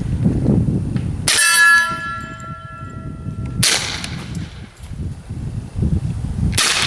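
Suppressed FN FNP-45 .45 ACP pistol fired three times, a few seconds apart. The first shot is followed at once by a steel target ringing with clear tones that fade over about two seconds.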